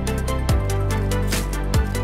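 Electronic background music with a steady beat: deep kick-drum hits under a sustained bass and ticking hi-hats.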